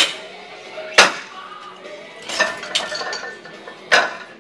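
Steel Eleiko barbell plates being loaded onto a bar in a squat rack: a series of metal clanks as plates go on and collars are fitted, the loudest about a second in, a quick run of them a little past halfway and another near the end.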